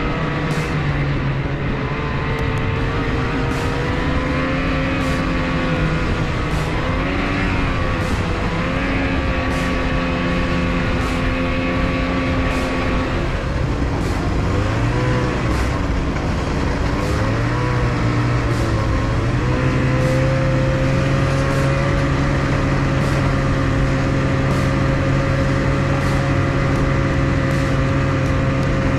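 Snowmobile engine running under the rider while the sled cruises along the trail. Its pitch holds steady, dips and rises several times around the middle as the sled slows and speeds up, then settles a little higher for the last third.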